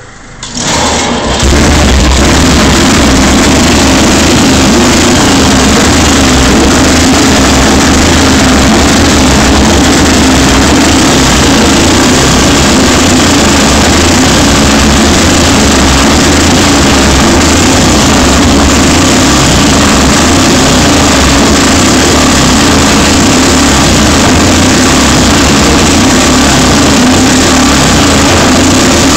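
500cc Excelsior Manxman single-cylinder overhead-cam engine running loud and steady on its first run after a full rebuild, held at even revs on the throttle. It picks up in the first second or two, then holds without faltering.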